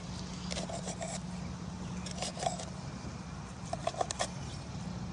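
Chef's knife slicing rested grilled steaks on a cutting board: three short runs of quick scraping cuts and taps against the board, over a steady low hum.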